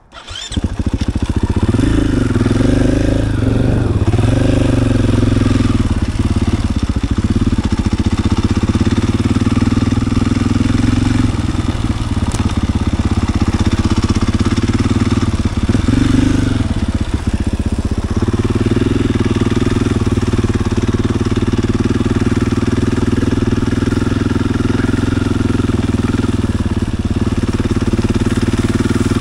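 KTM EXC-F 500's single-cylinder four-stroke engine running, coming in suddenly about half a second in. It is revved a few times in the first seconds and again about 16 s in, then runs steadily.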